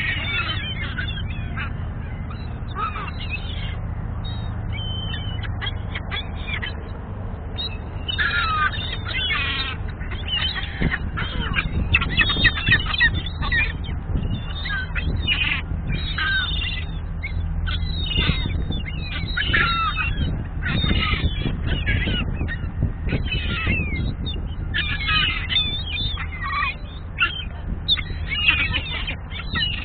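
A flock of gulls calling: many short, high, overlapping squawking cries that come in clusters through the whole stretch, over a steady low rumble.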